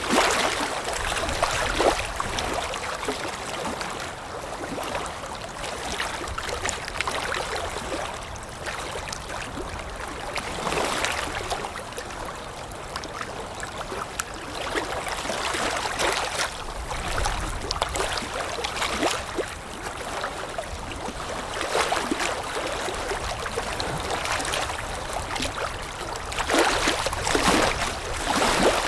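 Water lapping in small irregular splashes, with wind rumbling low underneath.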